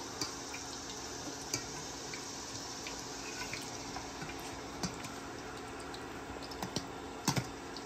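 A wire spider strainer clicking a few times against a stainless steel mixing bowl while a crunchwrap is turned and pressed in liquid French toast batter, with faint liquid sloshing, over a steady low hiss.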